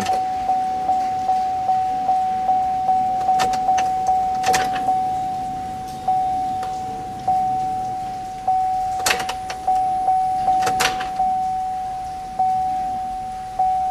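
Chevy Tahoe's dashboard warning chime ringing in the cab while the ignition key is cycled with the driver's door open: one steady pinging tone, about two to three pings a second for the first five seconds, then slowing to about one a second. A few sharp clicks come in between.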